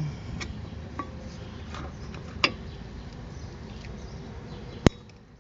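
Light metal clicks and knocks as a rear disc-brake caliper is fitted back over new pads onto its bracket: a few small clinks, a louder one a little past two seconds, and a single sharp metallic click near the end, the loudest of all.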